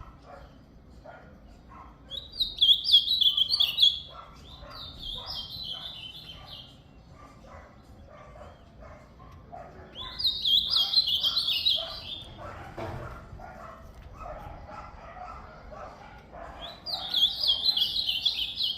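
Ultramarine grosbeak (azulão) singing: four loud warbled phrases of about two seconds each, the first two close together, then two more after pauses. Fainter short sounds run underneath throughout.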